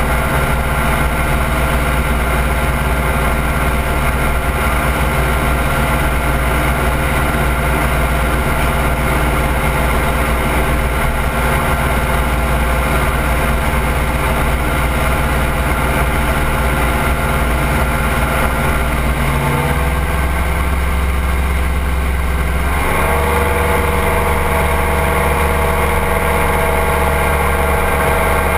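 Ultralight trike's engine running steadily in flight, with wind rushing over the wing-mounted microphone. The engine note dips about twenty seconds in and rises again about three seconds later.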